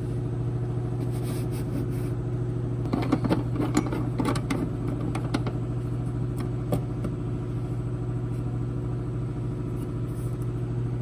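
A steady low mechanical hum, with a spell of irregular crackling and clicking about three seconds in that lasts a couple of seconds.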